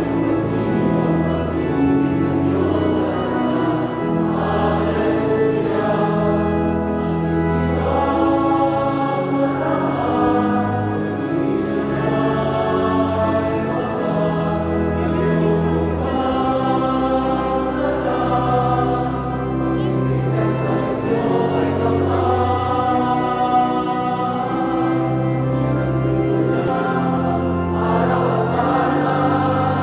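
A choir singing a hymn over long held accompanying notes, in a continuous, steady flow.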